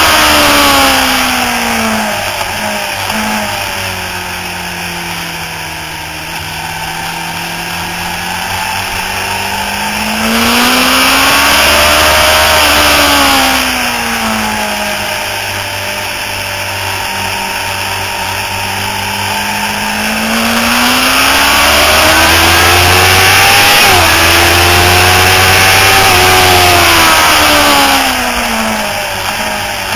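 Sport motorcycle's engine at track pace heard from onboard, with heavy wind rush. The pitch falls as it slows at first, rises under throttle about ten seconds in, falls again, then climbs through a gear change in the last third before easing off near the end.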